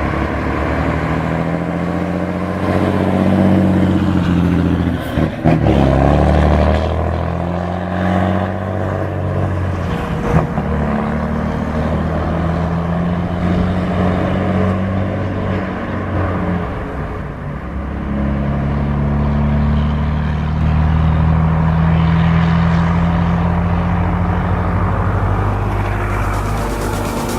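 Heavy truck's diesel engine running, its note rising and falling several times as it pulls and eases off.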